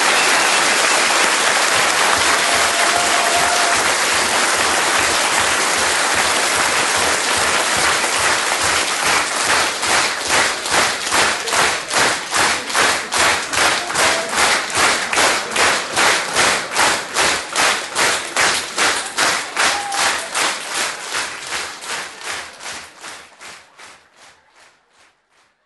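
Audience applause. About nine seconds in it turns into clapping in unison, about two to three claps a second, and then fades away near the end.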